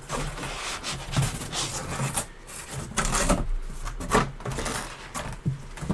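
Packaging rustling and scraping, with irregular louder strokes, as a large autographed photograph is worked out of its packaging by hand.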